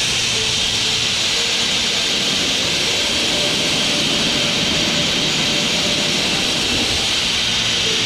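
Steady rushing noise of a fast, rocky mountain river in rapids.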